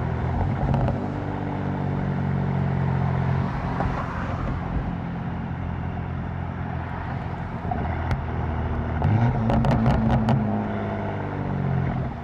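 A tuned BMW M4's twin-turbo inline-six running at steady low revs, heard from the cabin with the windows down. About nine seconds in the revs rise briefly and a quick run of sharp cracks comes from the exhaust.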